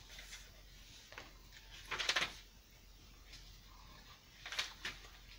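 Card and paper pages of a handmade journal being turned by hand: a few short papery swishes, the loudest about two seconds in and another about two and a half seconds later.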